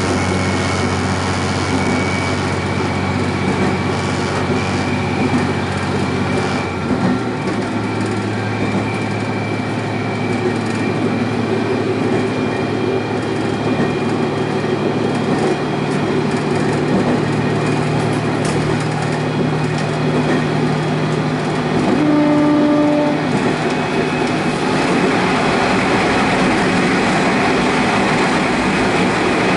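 Diesel railcar running along the line, heard from on board: a steady engine drone with wheel and rail noise. The engine note shifts about seven seconds in, and a short pitched tone sounds about two-thirds of the way through.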